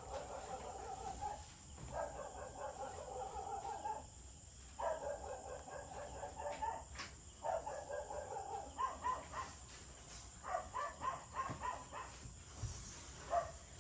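A dog calling in repeated bouts a second or two long. From about nine seconds in, the calls break into shorter, separate yelps.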